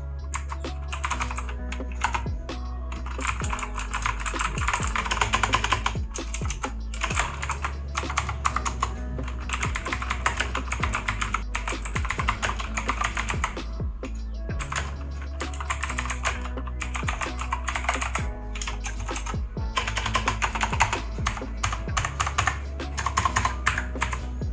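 Fast, continuous typing on an Amkette EvoFox Katana mechanical keyboard with Otemu blue switches, clones of Cherry MX Blue, giving a dense run of loud clicky keystrokes. Background music with a steady bass runs underneath.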